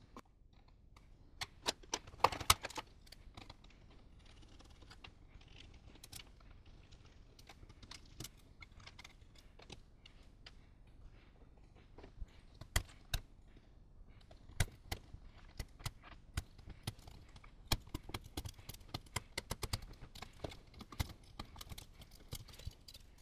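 Scattered clicks and clatter of hand tools and small screws and metal parts being handled while an electronics module is taken apart, with the loudest knocks about two seconds in and a quick run of ticks in the last several seconds.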